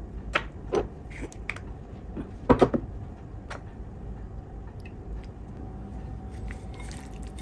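Kitchen utensils being handled: a few light clicks and knocks, the loudest a quick double knock about two and a half seconds in, then only faint room tone.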